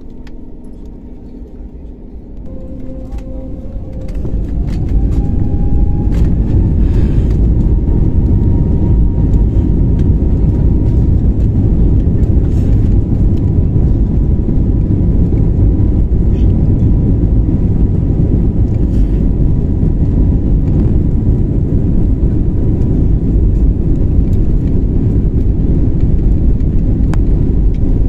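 Jet airliner's engines spooling up to takeoff thrust, heard from inside the cabin: a whine rises in pitch as the noise swells over the first few seconds. Then a steady loud, deep rumble of the takeoff roll, with the whine held above it.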